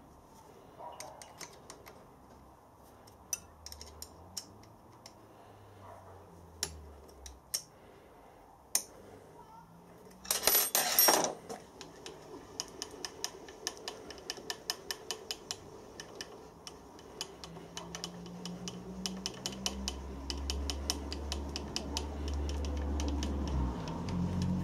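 Light metallic clicks and taps of hand tools adjusting a mill's DRO scale mounting, with a short louder scraping rattle about ten seconds in. After that comes a quick run of ticks, and a low hum builds near the end.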